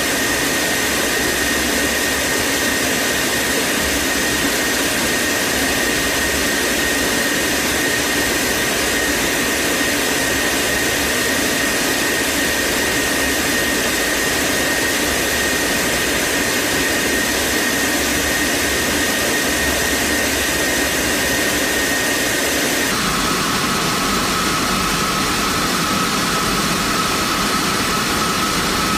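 Steady jet engine and airflow noise inside a B-52 bomber's cockpit in flight, with a constant high whine over the hiss. About three-quarters of the way through, the sound changes abruptly and the whine steps down to a lower pitch.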